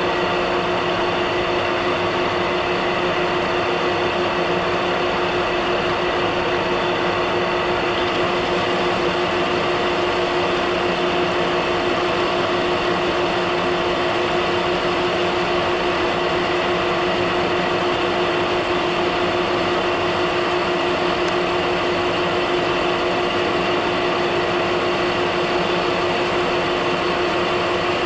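Metal lathe running steadily under power, its geared head giving a steady whine of several tones as a carbide insert tool turns a steel shaft.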